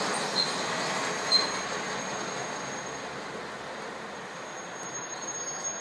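KiHa 47 diesel railcars rolling away along the platform as the train slows to stop, the running noise fading steadily. Two brief high squeals sound about half a second and a second and a half in, over a thin, steady high squeal.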